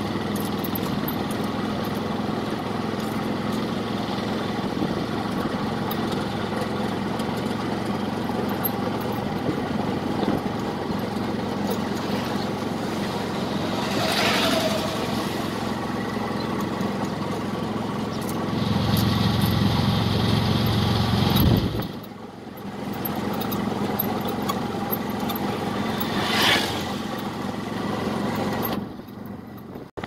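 Auto-rickshaw (tuk-tuk) engine running steadily, heard from inside the cab with road noise. The engine grows louder for a few seconds about two-thirds of the way through, then drops off suddenly, and it quietens again near the end.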